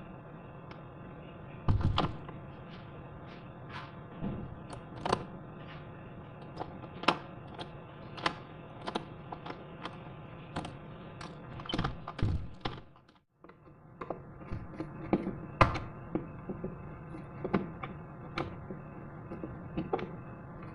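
Irregular sharp knocks and taps, roughly one a second, over a steady background hum, typical of woodworking with hand tools.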